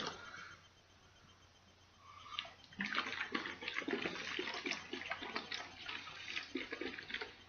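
Liquid sloshing inside a bottled peach mango juice drink as it is shaken hard, a quick churning rattle starting about two seconds in and lasting about five seconds.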